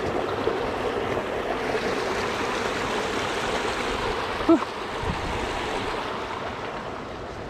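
Small woodland creek babbling steadily over a shallow riffle, growing fainter near the end. One short, sharp sound stands out about four and a half seconds in.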